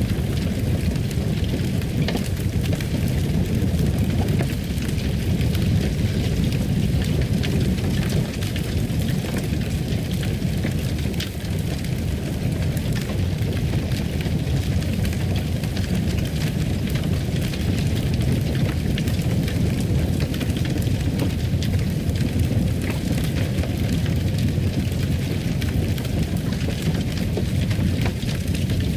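Wood fire in a fireplace burning steadily: a low rumble with scattered small crackles and pops.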